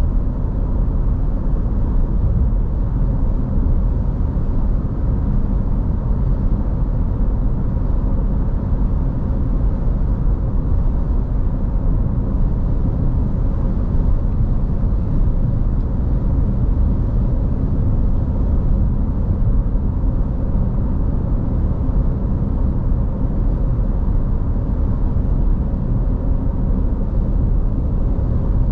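Car driving at steady speed, heard from inside the cabin: a constant low rumble of road and engine noise with a faint steady tone over it.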